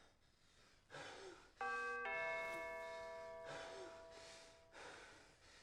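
Two-tone ding-dong doorbell chime: two notes struck about half a second apart, ringing on and slowly fading.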